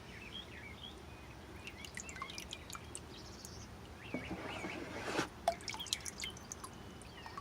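Water dripping and trickling from a net scooping tadpoles out of a bucket, with a louder splash about four to five seconds in. Small birds chirp in the background.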